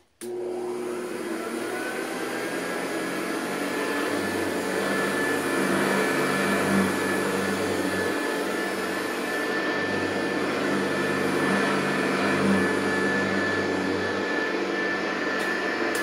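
Early-1970s Hoover Convertible U4007 upright vacuum cleaner switched on with a sudden start, then running steadily on carpet. It has a high whine over the motor hum, and its beater-bar brush roll turns against the pile. The low hum swells in two long stretches as the machine is pushed along.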